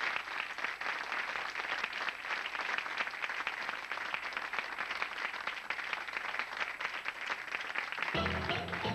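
Studio audience applauding steadily. About eight seconds in, the live band starts the intro of the song.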